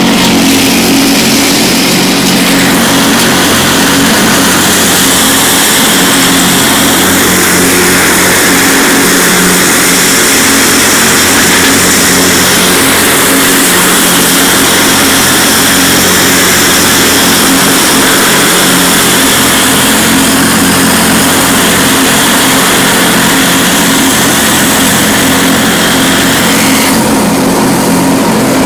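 Cub Cadet 1046 riding lawn tractor running steadily at working throttle, with a constant engine hum under a loud rushing noise as its mower deck runs over dry leaves.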